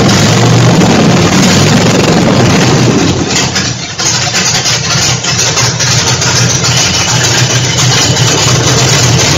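Rebuilt Ford 5.0-litre 302 V8 running steadily on its first start after a rebuild, with a short dip in level about four seconds in.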